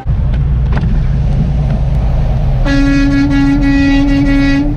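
Steady low rumble of a truck's engine and road noise heard inside the cab, then, a little past halfway, one steady air-horn blast of about two seconds.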